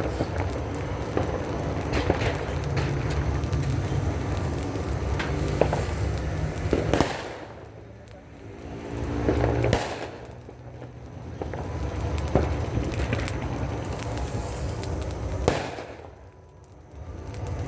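New Year's firecrackers and fireworks going off all around, a dense crackle of pops with a few sharper bangs. The din thins out briefly twice.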